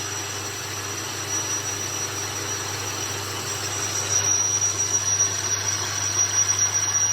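A motor-driven metal-cutting machine running while it cuts an iron rod: a steady hiss with a thin high whine and a low hum, getting louder and more uneven about four seconds in.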